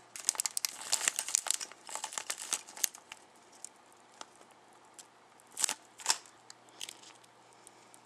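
Thin plastic parts bags crinkling as they are handled and torn open by hand: a dense run of crackling for the first three seconds, then a few separate crinkles.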